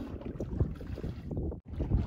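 Wind buffeting the microphone on a small boat at sea, an uneven, gusty low noise. The sound drops out for an instant about one and a half seconds in.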